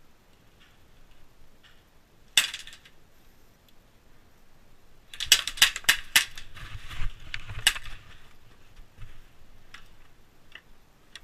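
Elite Force 1911 Tac airsoft pistol firing. One sharp shot comes about two seconds in, then a quick string of about half a dozen shots starts a little after five seconds and ends near eight seconds.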